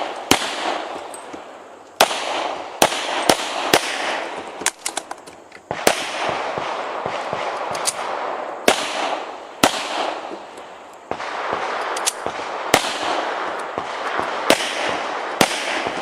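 Rock Island Armory Pro Ultra Match .40 S&W pistol fired in rapid strings during a timed practical-shooting stage run: sharp shots, often in quick pairs, with short pauses between strings.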